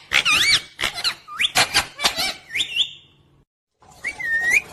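Pet parrot chirping: a quick run of squeaky whistled calls that arch and rise in pitch, mixed with short clicks. It breaks off about three and a half seconds in, then gives one more call near the end.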